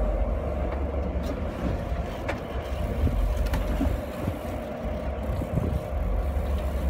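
Boat's engine running steadily as a low hum, with wind rumbling on the microphone and a few faint clicks.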